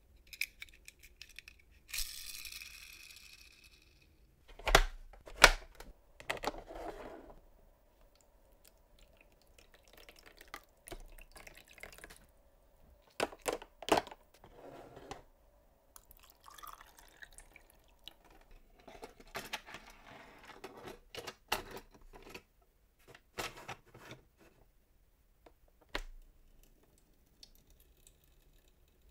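Hard plastic toy car and submarine car wash playset being handled: a string of sharp plastic clicks and knocks, the loudest two about five seconds in, with water dripping and splashing in the playset between them and a brief hiss about two seconds in.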